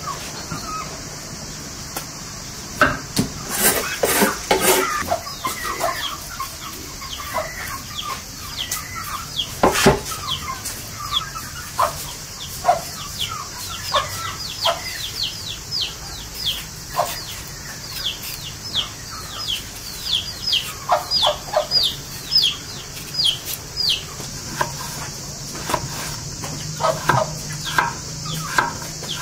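Chickens clucking around the yard, with a quick run of high, falling peeps through the middle. Sharp knife clicks and cuts sound through it as a potato is peeled and a green vegetable is diced on a wooden cutting board.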